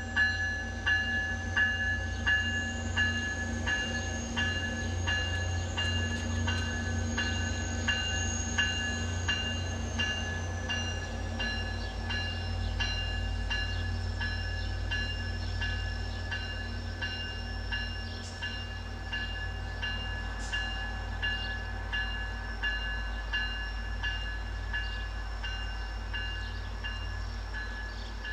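Diesel commuter locomotive's bell ringing steadily, about a stroke and a half a second, over the low running of its engine as the train reverses slowly away, both growing fainter. Two sharp clicks stand out past the middle.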